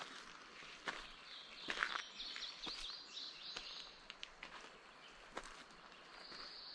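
Birds singing high, thin repeated notes, with scattered sharp ticks and crunches in between.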